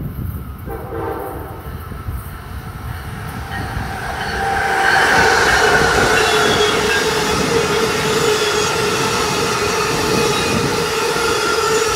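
Amtrak passenger train, an ACS-64 electric locomotive hauling passenger coaches, approaching and passing close at speed. The rush and rumble of wheels on rail grows to full loudness about four seconds in, with a steady high tone over it.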